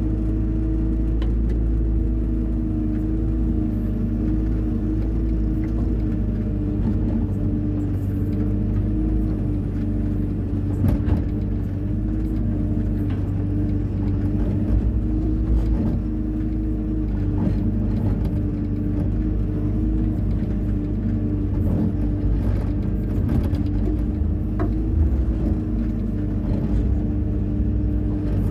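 Hyundai 140 wheeled excavator's diesel engine running steadily while it levels sand, with occasional light knocks.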